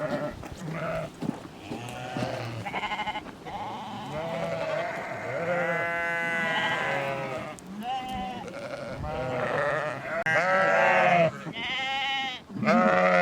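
A flock of sheep and goats bleating, many calls overlapping, some long and wavering, growing louder near the end.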